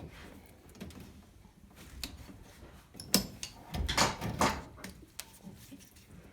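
Pliers and spring hose clamps being worked on the hoses of a washer's water inlet valve: scattered clicks and rattling knocks, with a sharp click a little past three seconds and a louder cluster around four seconds.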